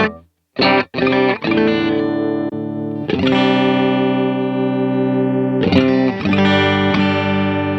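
Electric guitar played through a pedalboard of effects. A chord is choked off at once, then come two short chord stabs, then a chord strummed about three seconds in and another near six seconds, each left to ring.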